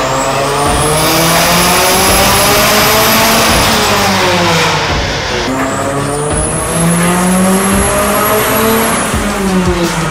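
Turbocharged Hyundai i30 engine at full throttle on a chassis dynamometer, revs climbing hard, dropping briefly about four to five seconds in, then climbing again before falling away near the end. A high whine rises alongside each climb.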